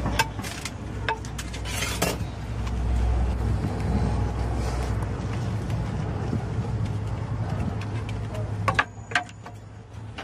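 Short clinks and scrapes of a spreader on a round crepe griddle as jianbing batter is spread, with a few sharper clicks about nine seconds in, over a steady low hum.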